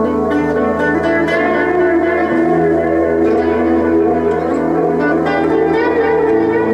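Electric guitar played through a Boss combo amp: a run of picked notes over a low note held underneath that stops near the end.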